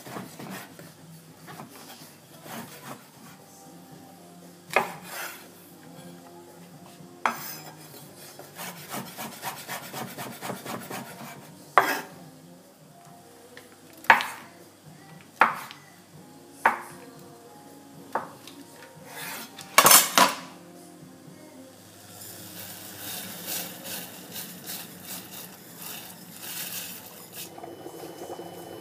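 Chef's knife cutting mushrooms and a block of Parmesan on a wooden chopping board. A run of soft, quick chopping taps is broken by about eight sharp knocks as the blade strikes the board.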